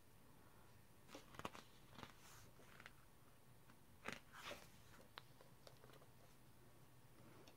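Faint rustles and soft taps of a thick photobook's paper pages being handled and turned: a few short crackles about a second in, and another cluster around four seconds in as a page turns.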